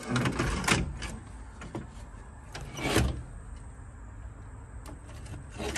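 Car instrument cluster being handled and pushed into the dash opening: clicks and scrapes, with one louder knock about three seconds in.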